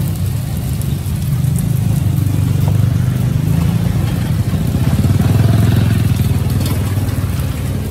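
A low, rough rumble that swells through the middle and eases near the end, with a faint sizzle of eggs frying on a flat griddle.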